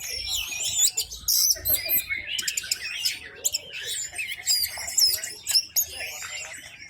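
Orange-headed thrush (anis merah) singing a dense, unbroken song of quick whistles and chattering phrases, one phrase running straight into the next.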